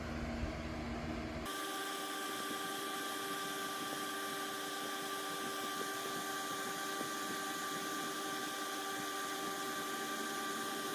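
Vapor polishing machine running with a steady hiss and a few steady whining tones, starting suddenly about a second and a half in.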